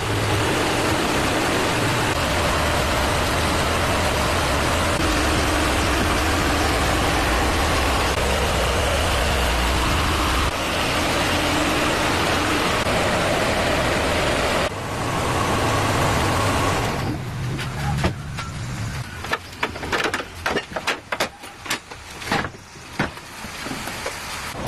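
Car engine running steadily just after starting. After about 17 seconds it gives way to a run of irregular clicks and knocks.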